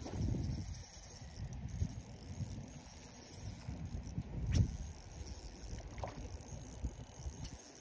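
Wind buffeting the microphone as an uneven low rumble, with a sharp click about four and a half seconds in and a fainter one a little later.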